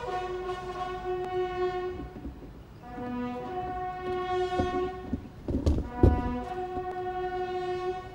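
Brass band playing a slow tune in long held notes that step from pitch to pitch. A couple of loud thumps come about five and a half to six seconds in.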